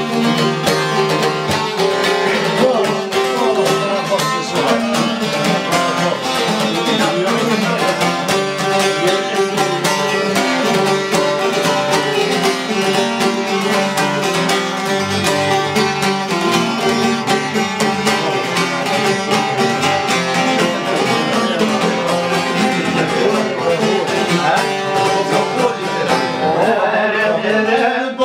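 Three long-necked plucked folk lutes playing an Albanian folk tune together, with fast, continuous plucked notes over a steady drone-like bass line.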